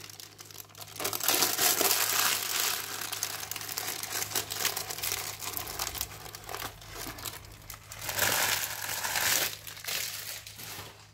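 Baking paper crinkling and rustling as it is peeled off a warm sheet of orange sponge cake and handled, loudest about a second and a half in and again around eight seconds in.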